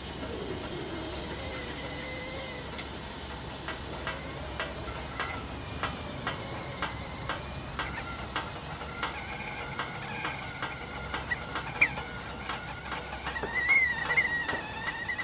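Stainless-steel whistling kettle heating on a portable gas stove as the water nears the boil: ticks and pops come more and more often over a steady low rush. About nine seconds in, a faint, wavering whistle starts from the spout and grows louder near the end.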